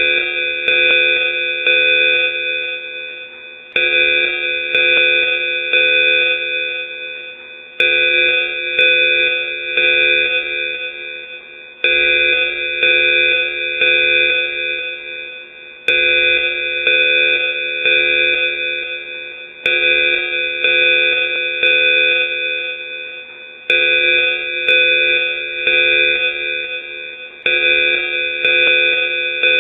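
Danger alarm sound effect: a loud, steady-pitched ringing tone that pulses as it fades, then restarts sharply about every four seconds, again and again.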